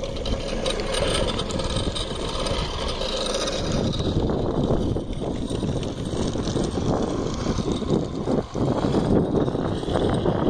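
Wind rushing over the microphone together with the road noise of a moving car, a steady dense rush with no clear engine note.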